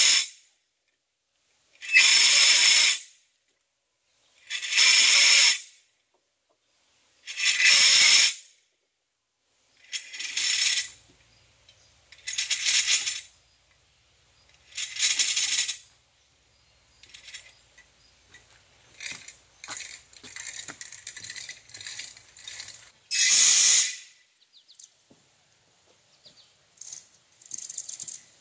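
Loose rock rubble rattling and pouring in short bursts a couple of seconds apart, as when rubble is scooped into a plastic bucket; after about seven bursts comes a stretch of lighter, irregular rattling, then one more burst near the end.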